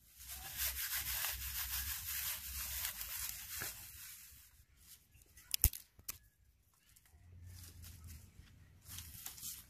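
Dry grass, straw and twigs rustling and crackling as they are scooped up and piled by hand, loudest over the first few seconds. One sharp crack a little over halfway, and a softer rustle again near the end as dry sticks are laid on the pile.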